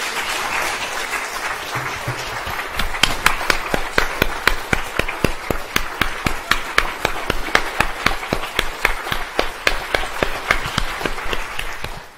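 Audience applauding. From about three seconds in, loud, evenly paced claps, a few a second, stand out over the crowd's clapping, and everything stops sharply near the end.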